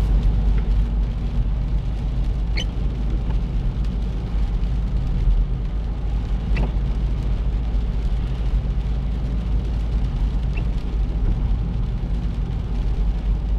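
Steady low road rumble of a car driving on a wet road, heard inside the cabin: engine and tyre noise with a hiss of tyres on water. A faint short squeak comes about every four seconds.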